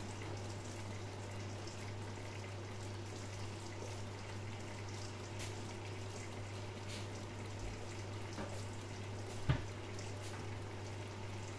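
Food simmering in a covered pan on the hob: a quiet, steady bubbling hiss under a glass lid, over a steady low hum, with one short knock about nine and a half seconds in.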